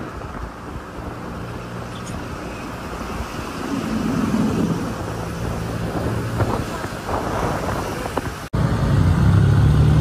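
Vehicle engine running steadily in a low hum that grows louder about four seconds in; about eight and a half seconds in it cuts off for an instant and comes back as a louder drone.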